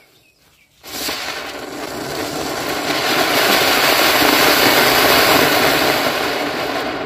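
A Diwali firework rocket lying on the ground ignites about a second in and burns with a loud, steady rushing hiss as it jets sparks, swelling over the next few seconds.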